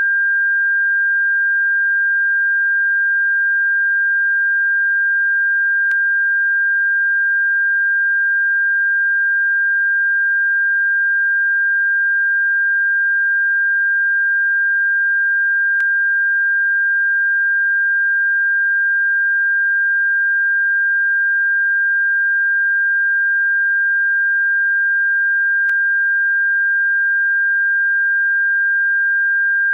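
A steady, unbroken pure sine tone at about 1.6 kHz, a synthesised bird-repellent frequency. Three faint clicks come about ten seconds apart.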